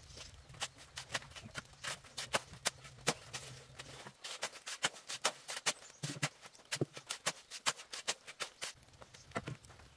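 Steel shovel working a pile of sand and cement mix, with irregular sharp clicks and crunches of grit several times a second.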